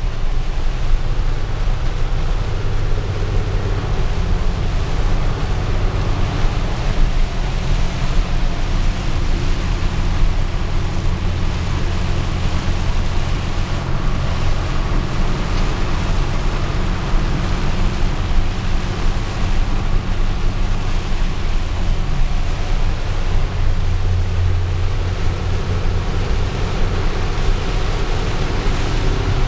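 Steady drone of a vehicle driving on a highway in heavy rain, heard from inside: a low engine and tyre hum under a constant hiss of rain and spray off the wet road.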